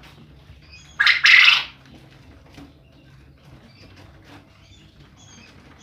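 A male quail gives one loud call about a second in: a short note followed at once by a longer, harsher one. Faint high chirps from other birds follow.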